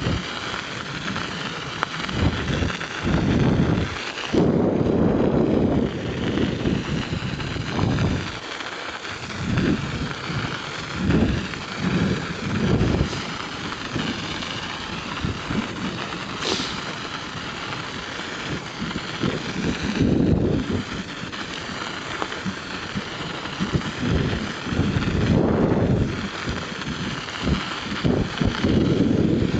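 Wind buffeting the microphone in uneven low gusts over a steady hiss of bicycle tyres rolling across snow-covered lake ice.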